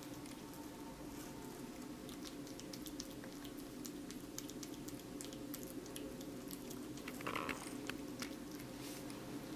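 Kitten chewing and biting at watermelon: many small, irregular wet clicks and smacks. About seven seconds in there is a short, louder sound with a pitch to it.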